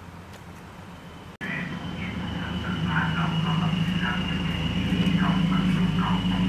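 A loud, steady low roar with a thin high whine above it begins suddenly about a second and a half in, with voices chattering faintly behind it.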